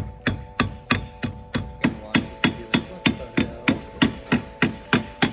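Hand hammer or mallet striking metal in quick, even blows, about three a second.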